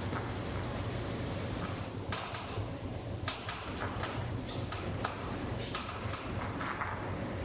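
Steady low hum with a handful of sharp, light clicks and knocks scattered through it.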